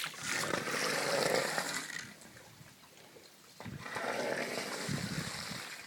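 Feet sloshing through ankle-deep floodwater, stirring up ripples: two swishing stretches of about two seconds each, with a quieter gap between.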